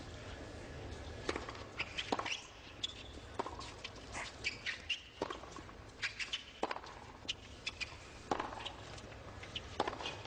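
Tennis racket strings hitting the ball in a serve and a baseline rally, six or seven sharp strikes about one and a half seconds apart, with short high squeaks between them.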